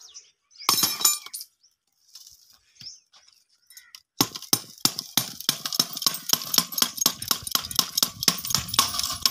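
Thick glass in a metal frame being struck: a sharp crash about a second in, then after a short lull a fast run of clinks and knocks, about five a second, as the glass is hit again and its broken pieces rattle.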